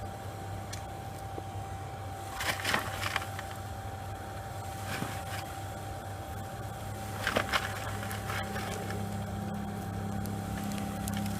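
Steady hum of a coal forge's blower, with a second, fuller layer joining about eight seconds in. Two short bursts of clattering knocks come about two and a half and seven seconds in.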